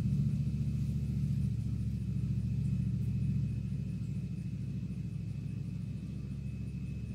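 A steady low motor drone with a faint high whine above it, easing off slightly about three and a half seconds in.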